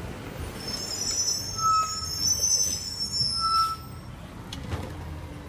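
Garbage truck's engine rumbling as it moves along the kerb, with a high-pitched brake squeal from about half a second in until about four seconds in and two short squeaks during it.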